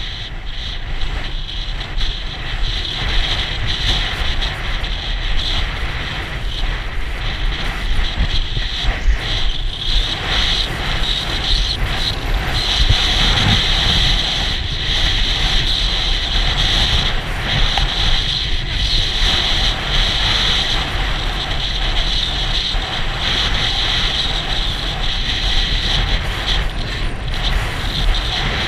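Wind rushing over the microphone of a camera carried on a horse moving fast across a field, with a steady rumble and frequent thuds from the hooves and the ride.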